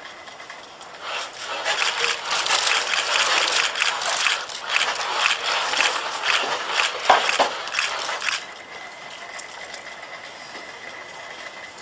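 HRP-4 humanoid robot walking forward and back: the joint motors and gears run with a loud mechanical whirring and clicking, starting about a second in and cutting off abruptly near the end. While the robot stands still before and after, a faint steady high whine is heard.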